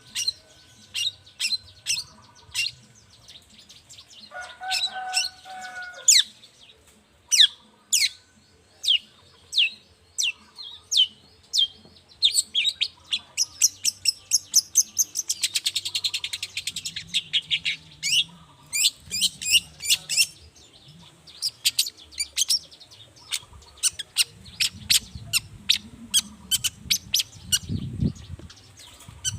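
Long-tailed shrike (cendet) singing: a rapid series of sharp, high, downslurred whistled notes, with a fast trill near the middle and a short harsher, lower call a few seconds in.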